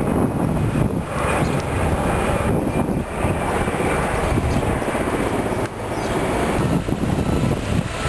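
Helicopter flying overhead: a steady, fairly loud rotor and engine sound.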